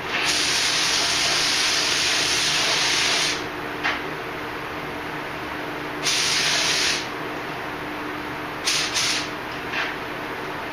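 Compressed-air paint spray gun spraying paint in bursts of hiss. There is one long pull of about three seconds, a second pull of about a second, and then a few short blips near the end.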